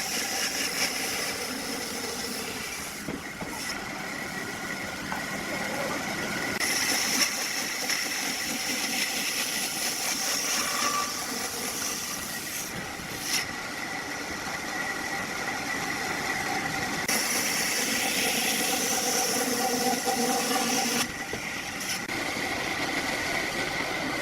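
Woodworking machinery running steadily, its noise changing abruptly several times.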